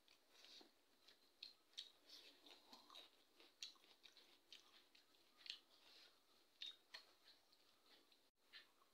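Faint eating sounds of a person eating rice by hand: soft chewing and small wet clicks and smacks at irregular intervals.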